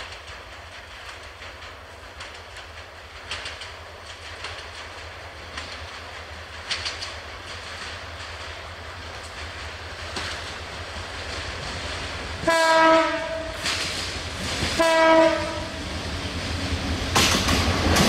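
EMD GT18LA-2 meter-gauge diesel locomotive approaching with its engine rumble and the click of wheels on the rails growing louder. It sounds two short horn blasts a couple of seconds apart, then runs past close by near the end.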